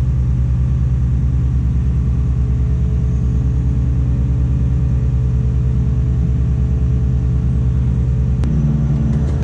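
Tadano crane's diesel engine running steadily, heard from inside the operator's cab as a loud, even low hum with a fast pulse. A sharp click comes near the end, after which the engine's note changes.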